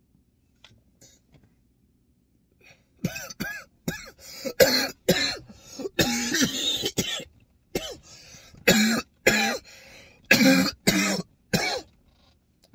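A man in a hard coughing fit after deep pulls of marijuana smoke: more than a dozen loud, hacking coughs in quick succession, starting about three seconds in.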